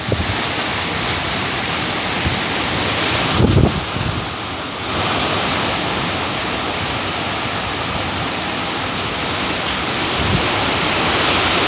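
Hurricane-force wind blowing steadily, a loud, even rushing hiss. About three and a half seconds in, a low thump buffets the microphone, and the noise eases briefly before building again.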